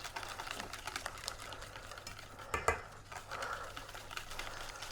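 Batter being stirred by hand in a mixing bowl: irregular scraping and light clicks of the utensil against the bowl, with one louder knock about two and a half seconds in.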